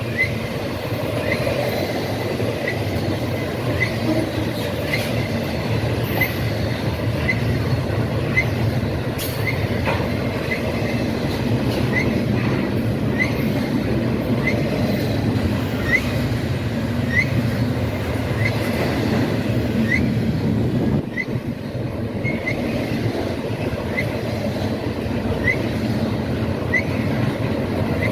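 Freight train rolling past with a steady rumble of wheels on rail. A short high squeak repeats a little more than once a second.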